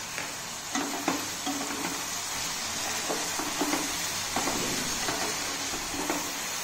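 Shredded cabbage, capsicum and tomato sizzling in oil in a nonstick kadai while a spatula stirs turmeric and salt through them, its strokes scraping the pan about twice a second over a steady hiss.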